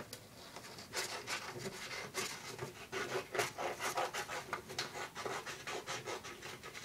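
Scissors cutting through a sheet of paper, a quick irregular run of snips with the paper rustling, starting about a second in.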